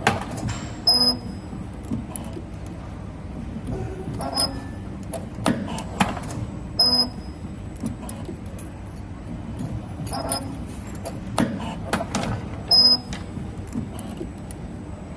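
CNC spring-forming machine bending 2.5 mm wire into ring clamps: a steady running hum broken by repeated sharp metallic clacks from its tool slides, coming irregularly about one to two seconds apart, several with a brief high ring.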